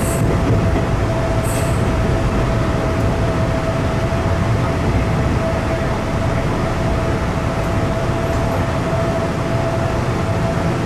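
Hanshin red-bodied (Akadō) electric train running, heard from inside the driver's cab: a steady rumble of wheels on track with a steady whining tone over it. A couple of short sharp clicks come in the first two seconds as the train crosses a level crossing and points.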